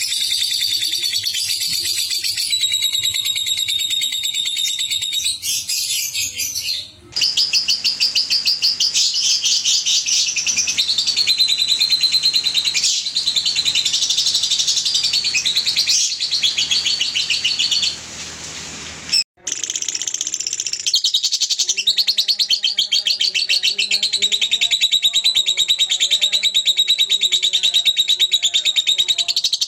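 Young caged lovebirds chattering in long, very fast, high-pitched trills, the 'ngekek' song. Three recordings cut into one another about 7 and 19 seconds in; the last bird is a Fischer's lovebird.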